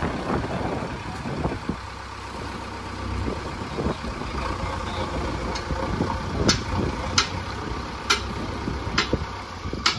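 JCB backhoe loader's diesel engine running steadily as the machine drives forward with its front bucket low. In the second half there are sharp knocks about once a second.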